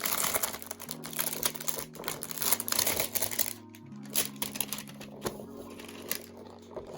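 Soft background music of steady held chords, over the rustle and clicking of toy packaging being handled, busiest in the first half.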